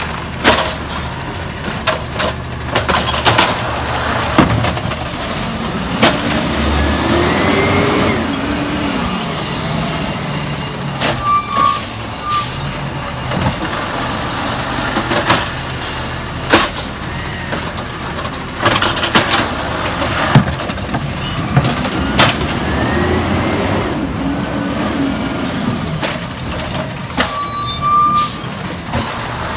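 Natural-gas Peterbilt 320 automated side-loader garbage truck running while its hydraulic arm lifts, dumps and sets down carts. The hydraulic whine rises and falls in pitch twice, over the engine, with sharp bangs from the carts and arm and hisses from the air brakes.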